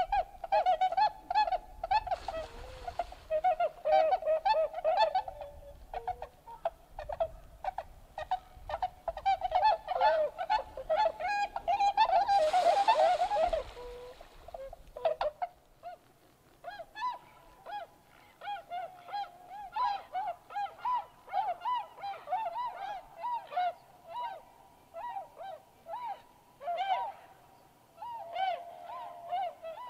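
A flock of swans calling on the water: many honking calls overlapping, dense and loud at first, then sparser and softer in the second half. A short rush of noise rises over the calls about twelve seconds in and dies away by fourteen.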